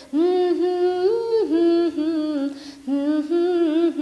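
A woman singing a wordless melody alone, holding long notes with vibrato, with a short breath between phrases about two and a half seconds in.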